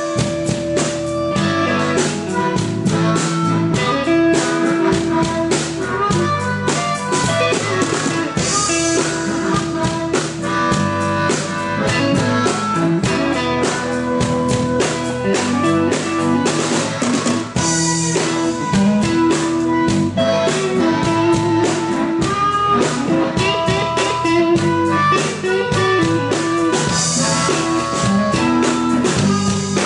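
Live blues band playing an instrumental passage on electric guitars, bass guitar and drum kit, with steady drums and cymbals and no singing.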